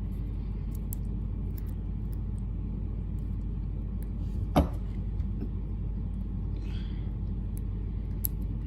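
Steady low background rumble, with a single sharp metallic click about four and a half seconds in and a faint scrape later, from a pick and tension wrench working the pins of a padlock.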